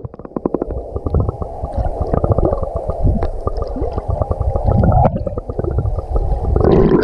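Sea water heard from a camera held just under the surface: a dull, muffled gurgling full of rapid bubble crackles and pops. Near the end it turns brighter and louder.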